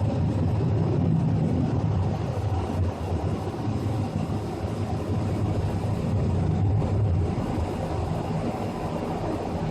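A steady low droning rumble from the sky, like an airplane that never passes, swelling and easing slightly in loudness; an air conditioner's running noise is mixed in with it.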